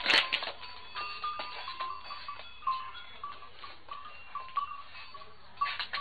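A sudden loud scuffle just at the start as a rooster and a sheep clash head-on, then a run of short, high-pitched animal calls.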